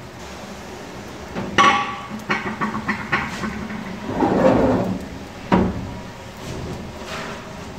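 Kitchen knocks and clatter from rolling out roti dough: a rolling pin knocking and rolling on a board. There are two sharp knocks, a run of lighter clicks between them, and a rubbing swell about four seconds in.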